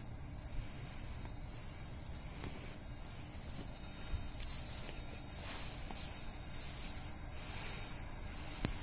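Steady, fairly faint outdoor hiss with soft swells, with no train heard passing.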